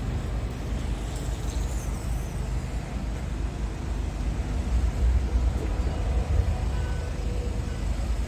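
Steady low rumble of a heavy vehicle's diesel engine idling.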